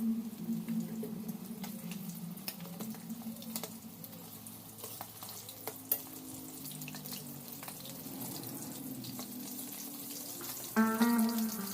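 Fish frying in a pan of hot oil: a steady sizzle with scattered sharp pops and crackles. Plucked-string background music comes in near the end.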